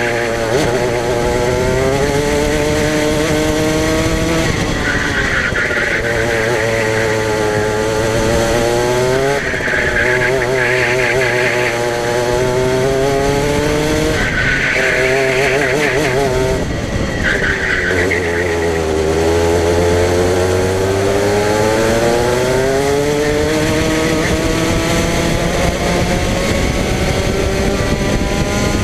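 Racing kart engine heard onboard at full race pace, its pitch climbing along each straight and dropping sharply as the driver lifts for a corner, about five times, with a long climb near the end. Short high squeals from the tyres come in several of the corners.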